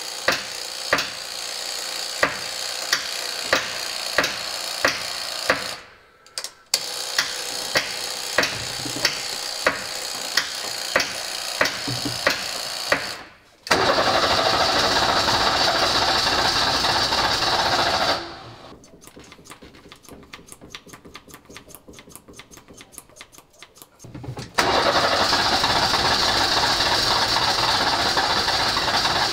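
Mercedes OM617 five-cylinder diesel in a Unimog 404 being cranked on the starter in repeated attempts, cutting out and starting again several times, with a regular ticking through the first stretches. It does not settle into running: the engine is short of fuel, which the owner puts down to injection pump plungers that are probably stuck.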